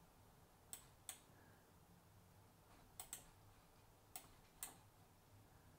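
Computer mouse clicks: about six sharp clicks, mostly in close pairs, over quiet room tone.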